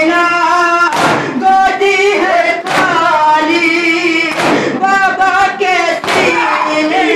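A boy's voice chanting a noha, a Shia mourning lament, into a microphone. Four heavy thumps fall in time with it, about every second and three quarters: mourners beating their chests with their palms (matam).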